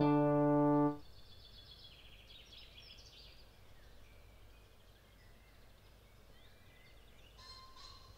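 A piano chord rings on and cuts off about a second in. Then come faint calls of northern lapwings, a cluster in the first few seconds and another near the end, over a quiet outdoor background.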